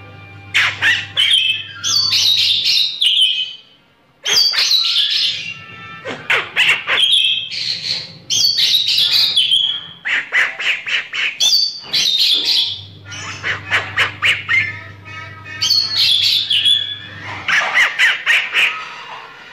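Caged Oriental magpie-robin singing a loud, varied song of rapid notes, whistles and harsh chattering. The phrases come one after another every second or two, with one short pause about four seconds in.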